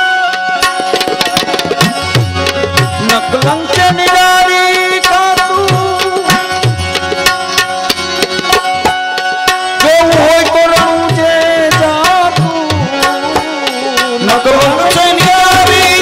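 Tabla playing a busy rhythm under a held melody on a pitched instrument: an instrumental passage of Gujarati devotional santvani bhajan music.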